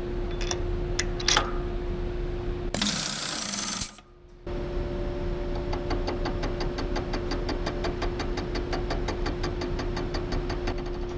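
Milling machine running a homemade face mill with high-speed-steel cutters made from broken tap shanks, taking a cut: a steady motor hum with a rapid, even ticking of the cutters striking the metal, about five a second. The ticking sounds as if not all the inserts are hitting equally. Before the cut there are a few metallic clicks, then a short burst of hiss and a brief dropout.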